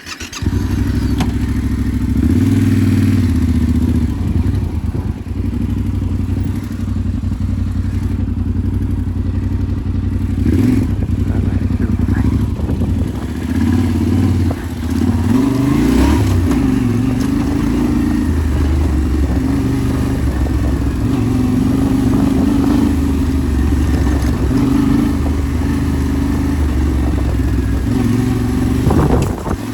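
Yamaha Ténéré 700's parallel-twin engine running under way off-road, its note rising and falling with the throttle. It sets in abruptly at the start.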